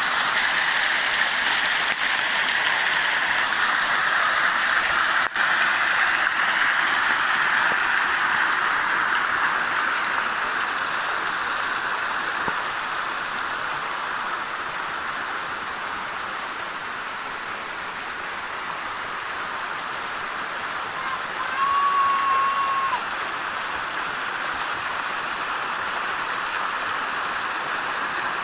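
Waterfall rushing steadily, a continuous hiss of falling water. About three-quarters of the way in, a short, steady high tone sounds for a second or so.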